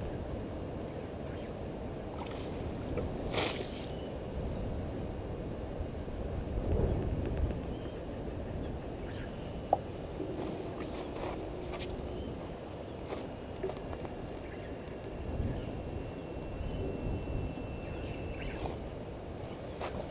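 Dusk bush chorus: a steady high insect trill, with a short chirp repeating about once a second, over a low rumble of ambient noise.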